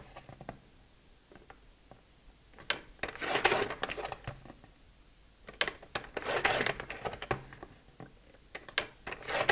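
Scoring blade of a paper trimmer drawn along its rail over cardstock. There are two sliding strokes, about three and six seconds in, each lasting a second or more, with light clicks between them.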